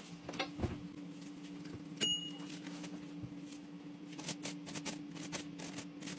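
An oven door opening with a sharp clack about two seconds in, then silicone-tipped tongs clicking and scraping on a foil-lined baking tray as roasting plantains are turned, over a steady low hum.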